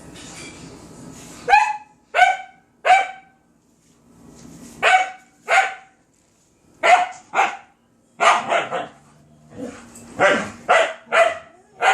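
Dog barking: sharp, repeated barks in quick groups of two or three, starting about a second and a half in and going on with short pauses.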